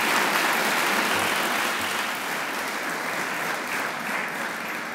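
Large seated audience applauding, a dense steady clapping that slowly dies down near the end.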